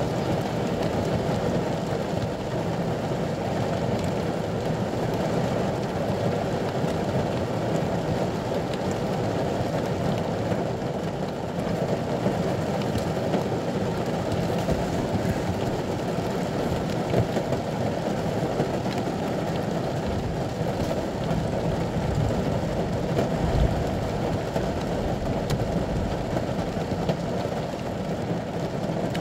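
Heavy rain falling steadily on the roof and windscreen of a ute, heard from inside the cab as an even, dense hiss and patter.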